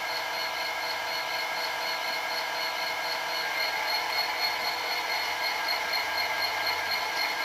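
Sound decoder in an OO gauge model of a Northern Ireland Railways class 111 diesel locomotive playing a steady diesel engine idle through the model's small speaker, thin and trebly.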